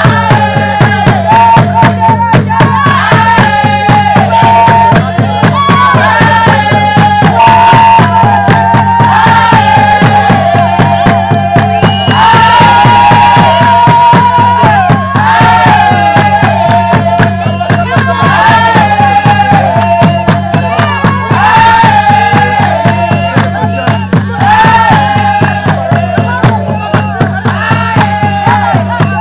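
Traditional Batwa song: a group of voices singing together over steady rhythmic hand-clapping.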